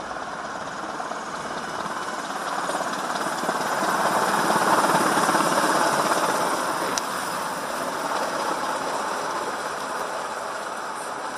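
Low-flying US military attack helicopter passing close over a car, heard from inside the car's cabin: its rotor and engine noise swells to a peak about five seconds in and then fades as it moves off ahead, coming down for a forced landing.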